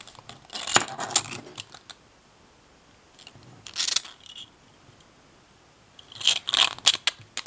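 3D-printed plastic lock followers clicking and clattering against each other as they are handled in the hands, in short bursts about a second in, around four seconds, and near the end.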